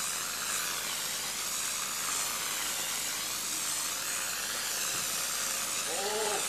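RimSpray GFRC Mini sprayer spraying glass-fibre reinforced concrete mix: a steady compressed-air hiss that swells and fades slowly.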